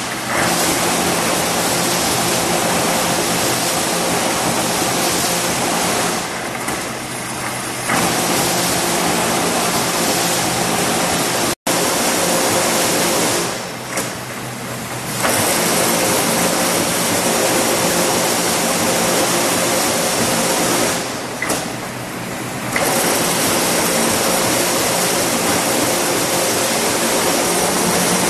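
Veer Advance-812 TMT wire straightening and cutting machine running with a steady mechanical hum and noise. The level drops briefly three times, about every seven seconds, and each time comes back with a sharp click.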